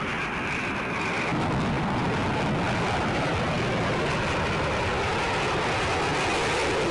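Jet engine noise from Black Eagles T-50B aerobatic jets in flight, loud and steady, with a higher whine that drops out about a second in.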